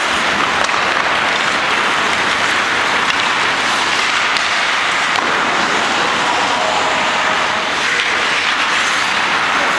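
Steady, even hiss of ice-rink ambience, with no distinct knocks, whistles or voices.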